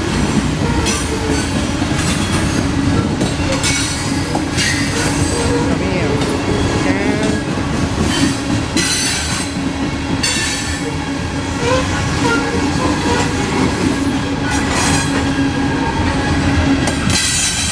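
Loaded coal hopper cars of a CSX freight train rolling past: a steady rumble of steel wheels on rail, with squealing wheel flanges and repeated clicks over the rail joints. The sound falls off slightly as the end of the train goes by near the end.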